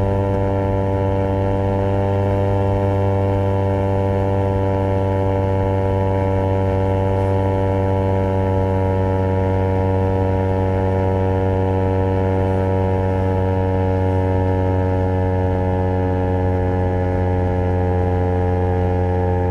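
Honda CBR250RR's parallel-twin engine running through a Project 79 slip-on exhaust, held at steady revs with its pitch sagging very slightly.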